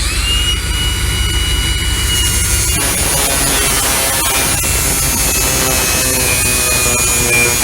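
Brakes grinding: a loud, steady, harsh grinding noise with a high squeal over it that drops slightly in pitch about three seconds in.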